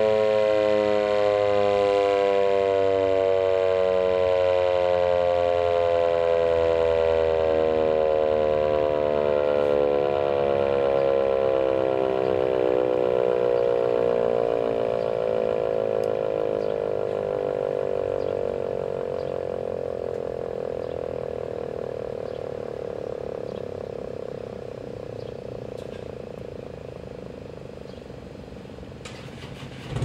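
ASC T-128 eight-port mechanical tornado siren winding down after shutoff, its tone falling slowly and fading over nearly half a minute.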